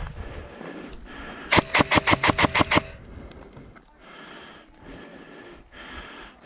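Airsoft gun firing one full-auto burst of about ten shots, roughly eight a second, lasting a little over a second. Wind and rustling of the player moving fill the rest.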